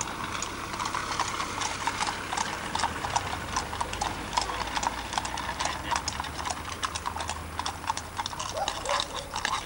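Hooves of several horses clip-clopping on an asphalt road as they pass: an irregular run of sharp clicks.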